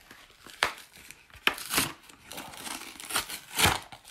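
Plastic blister packaging and cardboard backing of a trading-card tripack being torn open and crinkled by hand: a series of sharp crackles and rips, the loudest about three and a half seconds in.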